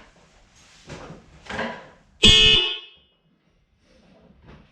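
A pair of newly installed aftermarket Farbin 12-volt car horns sounding one short, very loud blast about two seconds in.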